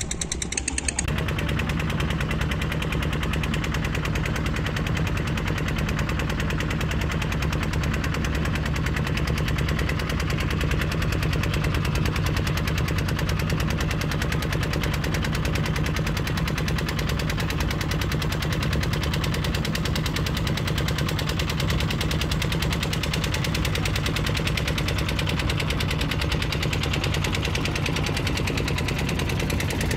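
The river ferry's diesel engine running with a fast, even chugging at a steady level, starting about a second in.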